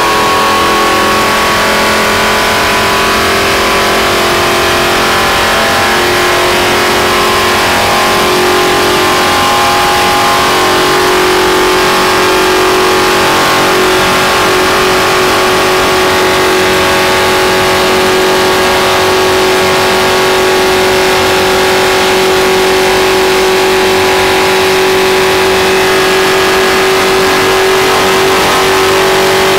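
Stock car's V8 engine running hard at high, nearly constant revs at racing speed, heard from inside the cockpit. The pitch wavers slightly about seven seconds in, then holds steady.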